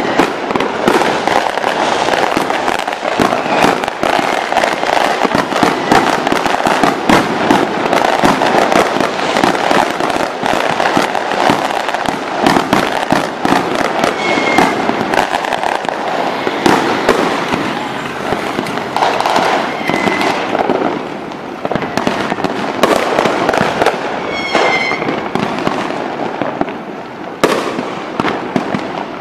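Large fireworks display: dense, continuous crackling and popping of many aerial shells bursting at once, with a few short high whistles and a sharp bang near the end.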